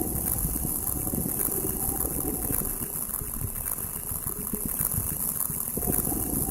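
Ceramic mug picked up by a contact microphone and processed live through a modular synthesizer: a dense, low, crackling texture over a steady high hiss. It thins out in the middle and thickens again about six seconds in.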